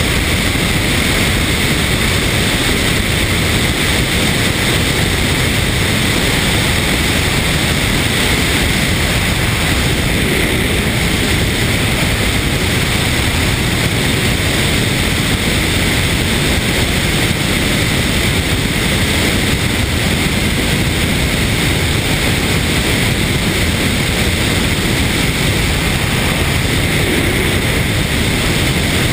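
Steady rush of wind over a wing-mounted camera on a Van's RV-8A light aircraft in flight, with the aircraft's engine and propeller noise mixed in. The noise holds level throughout.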